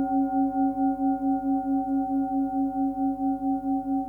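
Forged Tibetan singing bowl, the set's C-sharp bowl tuned to about 274 Hz, ringing with a sustained note and its overtones. The note wobbles in volume several times a second and slowly fades.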